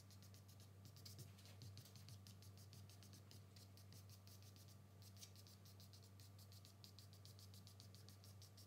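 Faint scratching of a willow charcoal stick on drawing paper, in quick short strokes several times a second, over a low steady hum.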